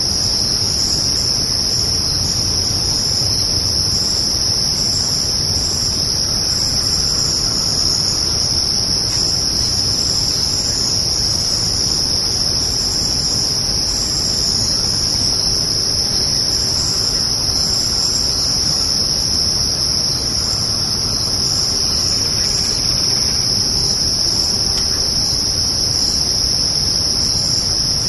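Crickets trilling in a steady, continuous high-pitched chorus, with fainter, irregular chirps from other insects above it.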